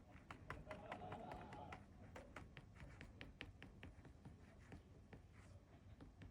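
Faint, light tapping by hand, several soft taps a second in a steady rhythm, as in dabbing work during seal stamping and rubbing.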